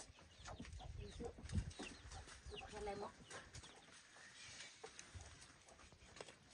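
Faint clucking of domestic chickens, a few short calls, among scattered small clicks and knocks.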